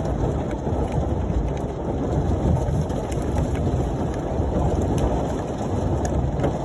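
Large hail and heavy rain pelting a car's roof and body, heard from inside the cabin: a dense, steady clatter with scattered sharper hits.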